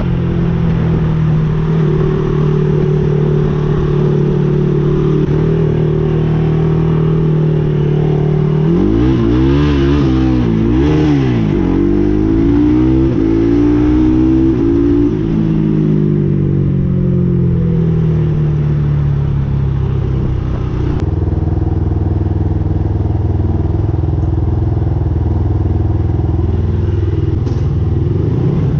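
Adly Hurricane 500 quad's engine running while riding, steady at first; about nine seconds in the revs rise and fall several times over a few seconds, then ease down and hold a steady, lower pitch.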